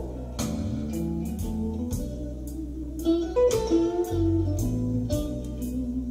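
Recorded guitar music with a bass line and percussion, played back through a hi-fi system of large Wolf von Langa floorstanding loudspeakers.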